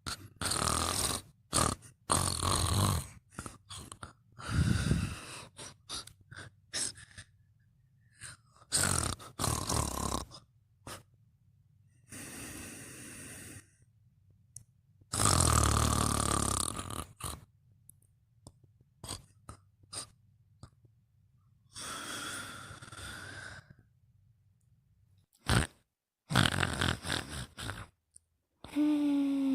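Snoring in sleep: irregular, noisy breaths every few seconds, each lasting a second or two, some louder and deeper than others, with quiet pauses between.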